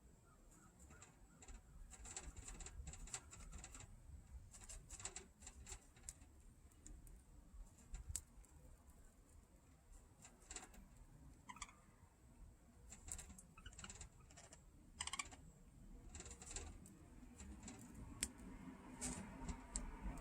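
Budgerigar cracking and husking seeds: faint, irregular clicks and crackles, sometimes in quick clusters.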